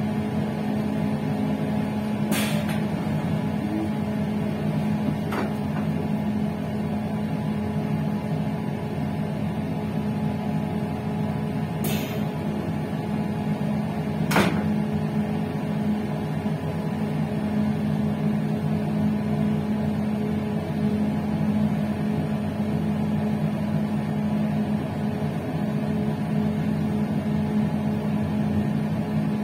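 Steady hum of a moving passenger train, with a strong low drone, broken by four short sharp clicks in the first half.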